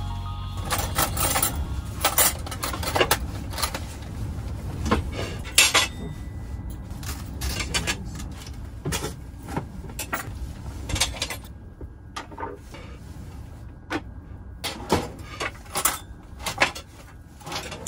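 Plates, cutlery and a pot clinking and knocking against each other and a wooden table as a meal is set out and served. The clinks and knocks come one at a time throughout, over a low, steady rumble.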